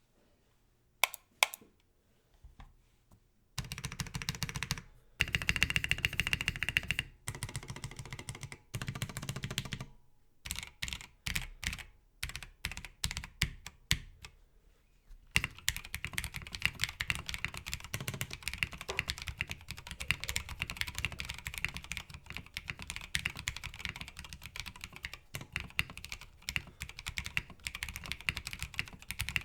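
Mechanical keyboard with stock Tecsee Oreo linear switches, PBT keycaps and a POM plate, being typed on. It starts with a few single keystrokes, then short bursts of typing with pauses, and from about halfway it becomes continuous fast typing.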